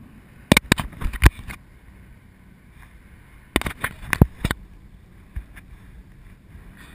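Two quick flurries of sharp clicks and knocks, the first about half a second in and the second about three and a half seconds in, over a faint steady hiss of wind.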